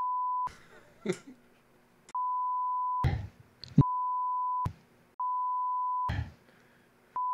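Censor bleep: a steady single-pitched beep, about a second long each time, sounding five times at roughly one-and-a-half-second intervals. It blanks out a slur that is being said over and over.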